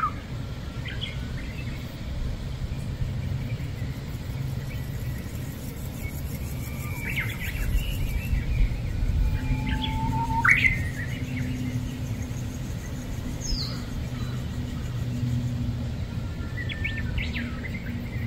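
Birds chirping now and then, including a few short calls that sweep sharply up in pitch, over a steady low rumble.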